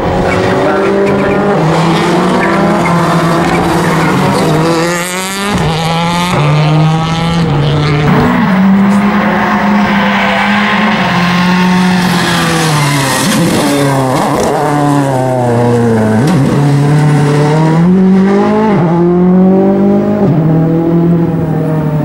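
Ford Focus WRC rally cars' turbocharged four-cylinder engines running hard on track. The engine note climbs and drops repeatedly as the cars accelerate and shift, with a brief lift a little after five seconds in.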